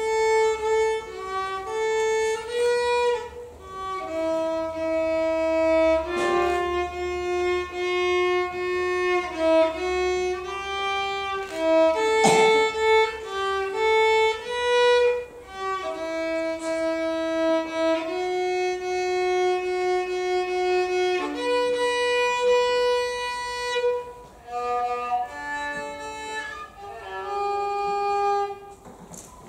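Violin playing a slow melody of held notes, with a single sharp knock a little before halfway through.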